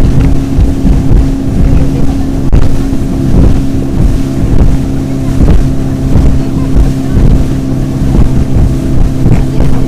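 Motorboat engine running steadily at speed, with the hull slapping over chop and spray hissing, and wind buffeting the microphone.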